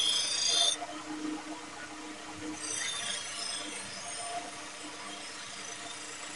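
ASSAB 88 steel chopper blade held against a spinning sharpening wheel on a motor-driven spindle, over the steady hum of the motor. The high hiss of steel on the wheel stops under a second in and comes back more softly about two and a half seconds in.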